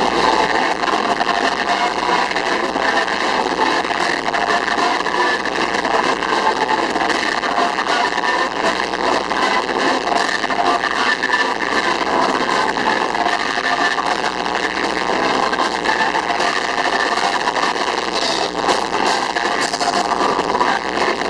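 Live church praise band with drums, keyboard and electric guitar playing with a large crowd, recorded so loudly that it comes through as a dense, steady wall of noise.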